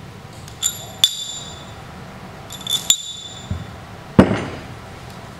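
Steel bolts clinking against the metal retaining flange and faceplate of a sight flow indicator as they are slid through the bolt holes, with a brief metallic ring after each clink, three times. About four seconds in, a heavier thud as the parts are set down on the wooden workbench.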